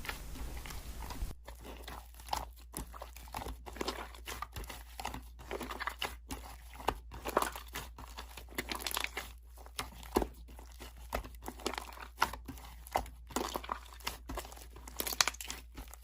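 Slime being pressed and squished by hand, giving off many short, irregular crackles and pops with a crunchy, crinkling texture.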